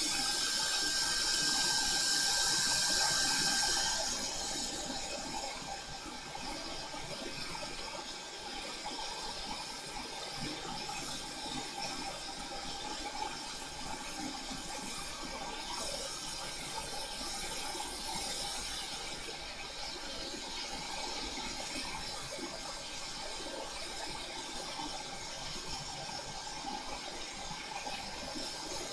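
Hot air rework station blowing a steady hiss of air onto the board as the solder under the Switch's LCD connector is melted. It is louder, with a faint whine, for the first few seconds, then settles to a softer steady rush.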